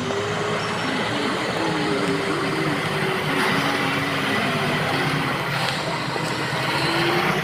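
Excavator diesel engine and hydraulics running under load, with a steady tone that wavers up and down in pitch over a continuous mechanical rumble.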